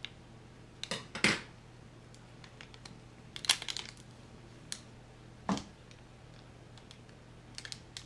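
Scissors snipping and clicking on a thin adhesive lure wrap, a handful of separate short cuts, the loudest about three and a half seconds in.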